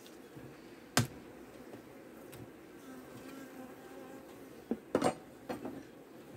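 Honeybees humming steadily over an open hive, with the sharp knocks of a hive tool against the wooden frame top bars: one loud knock about a second in and a quick cluster of knocks near the end as the frames are worked loose.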